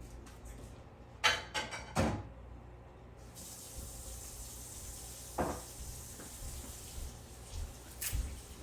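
Small clicks and taps of a screwdriver and tiny screws being worked out of a Samsung Galaxy Note 8, several close together early, then single taps. A steady hiss comes in about three seconds in.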